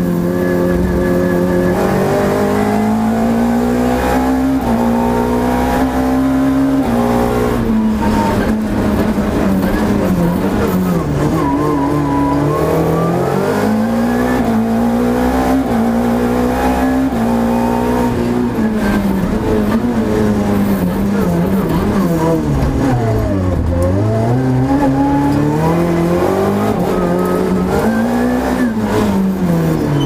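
Renault Clio FA7 rally car engine heard from inside the cockpit, working hard: the revs climb and fall back in steps with each gear change. Twice, near the middle and about three quarters through, the pitch drops deeply as the car brakes and changes down for a corner, then climbs again.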